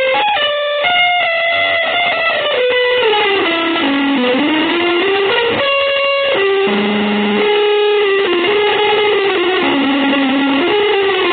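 Electric guitar playing a slow single-note melodic line through effects, the notes held and sliding up and down in pitch between them.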